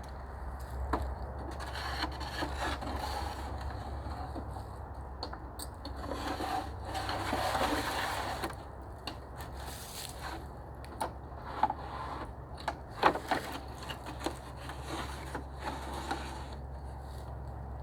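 Wooden sticks and branches rubbing and scraping against each other as they are handled and worked, with a louder scraping stretch about halfway through and scattered sharp clicks in the second half.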